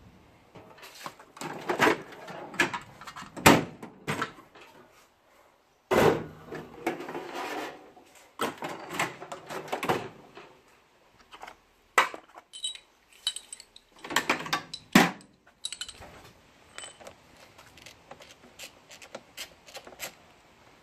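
Irregular clattering, knocks and clicks from tools and seat hardware being handled, with the loudest knocks around 3.5 s and 15 s in.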